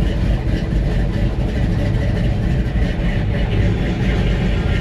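BluePrint 383 small-block V8 in a 1962 Chevrolet C10 pickup running steadily at low speed, heard from inside the cab.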